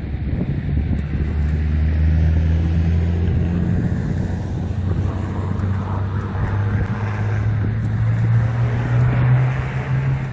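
A car engine held at raised revs under load as a car bogged in a gravel trap is towed out. It runs steadily and creeps up in pitch over the last few seconds, with a rushing hiss growing in the second half.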